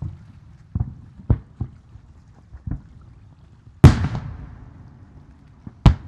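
Aerial firework shells bursting: a string of sharp bangs at uneven intervals, the loudest about four seconds in, its boom rolling on for about a second before fading.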